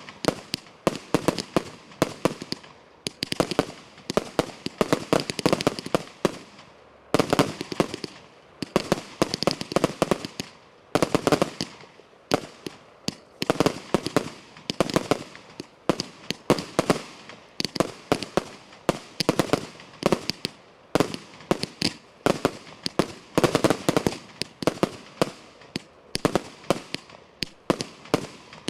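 Thunder Bomb firework cake firing a rapid, continuous run of loud sharp bangs, several a second, with one brief pause a little past six seconds in.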